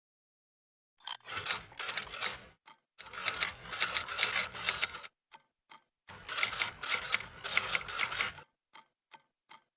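Typewriter keystroke sound effect: rapid key clicks in three runs of about two seconds each, then a few separate clicks near the end.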